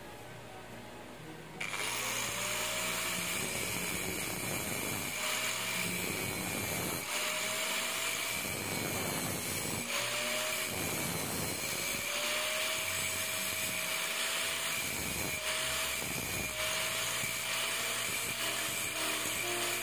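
A small power tool's motor starts about a second and a half in and runs with a steady high whine and hiss. Its lower note sags and climbs back up every two seconds or so, as if it is biting into work and easing off. Background music fades out just before it starts.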